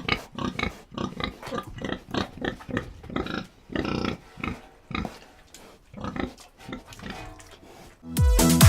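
Domestic pig grunting in a quick run of short calls. Music with a steady electronic beat starts near the end.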